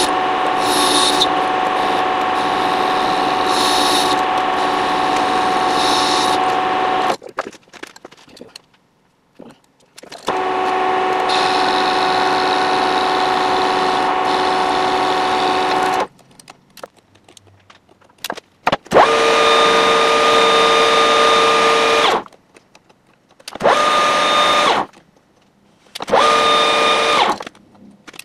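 Metal lathe running with a steel Tesla Model S half-shaft spinning in its chuck, a steady whine of several tones. It stops and starts several times, and the last three runs near the end are shorter, with a different, lower whine.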